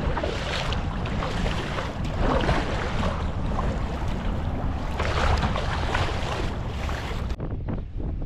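Wind buffeting the microphone over sloshing, splashing sea water, surging louder a few times. About seven seconds in, the sound abruptly turns duller.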